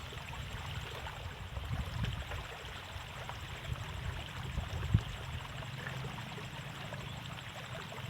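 Water flowing and trickling in a narrow rice-field irrigation ditch, over a low uneven rumble, with a single sharp knock about five seconds in.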